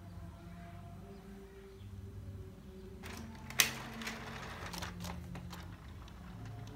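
Inkjet printer starting a print job: a sharp mechanical click about halfway through, followed by a few lighter clicks over a low steady hum.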